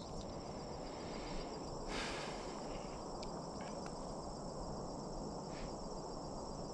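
Steady, high-pitched, pulsing insect chorus of crickets, with a brief faint rustle about two seconds in and another, fainter one near the end.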